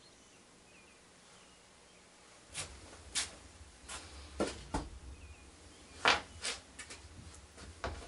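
Irregular knocks and clicks from someone moving and handling things close by, with a low rumble underneath. They start after about two and a half seconds of faint room tone, and the loudest knock comes about six seconds in.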